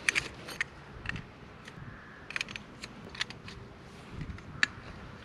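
Short aluminium tent pole sections clicking and knocking as they are pushed together and handled, a scattering of sharp clicks with one louder click near the end.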